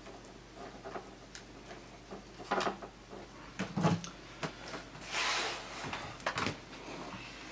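Scattered small knocks and clicks with a brief rustle as a mobile phone is picked up from a wooden bedside table and handled, over a faint steady hum.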